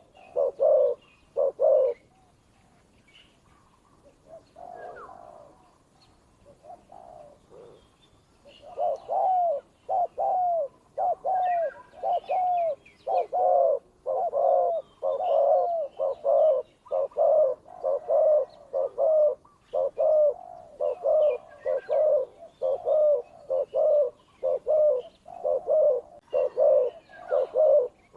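Doves cooing: a few coos, a softer lull, then from about nine seconds in a steady run of repeated low coos, about one and a half a second. Faint higher chirps of small birds sound above them.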